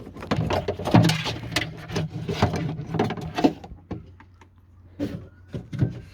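Handling noise inside a car door: a quick run of clicks, knocks and rattles of hard plastic and metal parts as the door latch and lock actuator assembly is worked loose. It goes quieter for about a second near the end, then a few more knocks.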